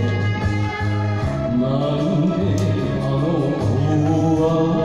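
Enka song on a karaoke backing track, with a man singing over it into a microphone.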